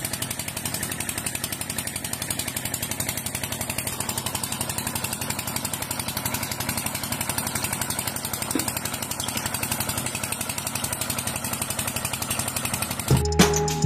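A small motor running steadily with a fast, even rattling buzz. Music with drums starts abruptly near the end.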